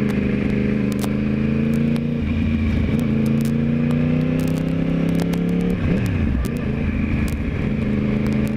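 Yamaha YZF-R1 inline-four engine pulling steadily at moderate revs, the pitch slowly climbing, with a brief dip in revs about six seconds in before it picks up again. Wind rushes over the helmet-mounted microphone throughout.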